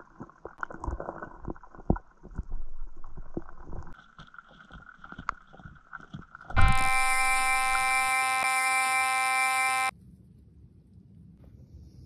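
Underwater clicks, knocks and low thumps of carp rooting and feeding among shells and baits on the lakebed. About halfway through, a loud, steady electronic buzzing tone starts abruptly and cuts off after about three seconds.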